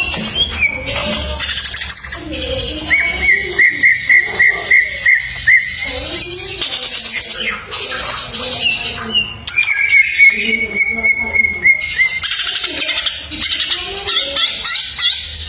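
Greater green leafbird (cucak ijo) singing a long, rapid, varied song of chirps and slurred whistles full of mimicked phrases, with two runs of quick repeated notes.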